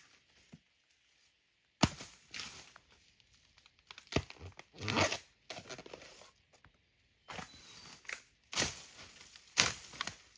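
Irregular tearing and crackling sounds, with several sharp knocks between short quiet gaps.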